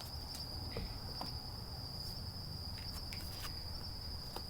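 A cricket trilling steadily at one high pitch, with a few faint clicks.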